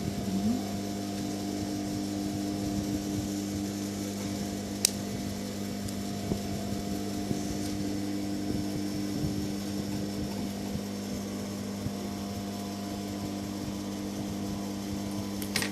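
Steady electric hum of an industrial high-speed sewing machine's motor running with the machine idle. A single sharp click comes about five seconds in, and another near the end.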